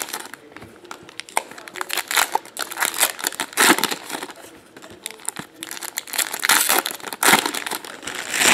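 Foil trading-card pack wrappers crinkling and being torn open by hand, in irregular bursts of rustling with sharp crackles, loudest near the end as the wrappers are swept together.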